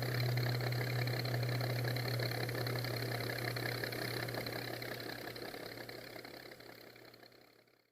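Small electric motor running steadily with a constant hum, fading out over the last few seconds.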